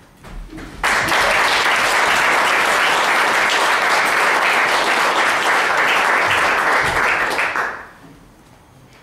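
Theatre audience applauding. The clapping starts suddenly about a second in, holds steady, and dies away after about seven seconds.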